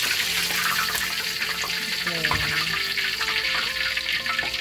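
Half a duck sizzling steadily in hot oil in a wok, the oil still bubbling around it as it is lifted with tongs.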